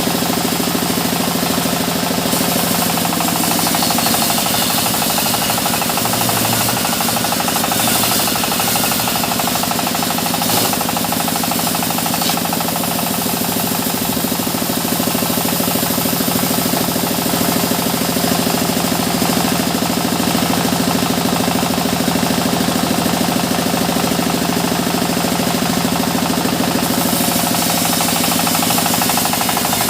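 Sawmill machinery running steadily: a loud, even machine drone with a fast, regular pulse.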